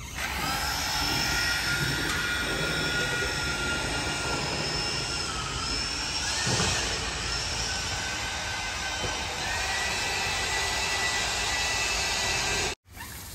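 An electric machine motor running steadily with a high, multi-pitched whine that drifts slightly in pitch, cutting off suddenly near the end.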